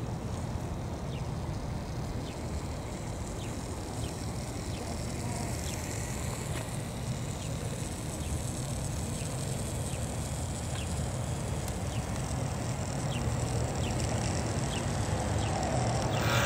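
Outdoor ambience: a steady low rumble with a faint short high chirp repeating about once a second. The rumble grows somewhat louder in the last couple of seconds.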